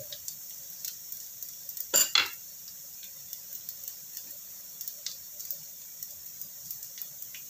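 Shallots, garlic and ginger frying gently in oil in a pan, with faint scattered pops and crackles. About two seconds in, a wooden spatula knocks sharply against the pan twice.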